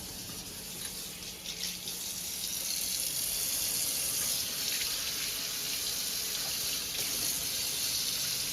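Water running hard from a Delta kitchen faucet into a quartz sink: a steady rush that builds over the first few seconds and then holds. The flow is at good water pressure, fed by 3/4-inch supply pipes.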